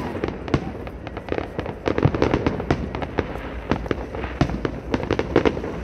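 Aerial fireworks bursting: many sharp bangs and crackles in quick, irregular succession, thickest about two seconds in and again near the end.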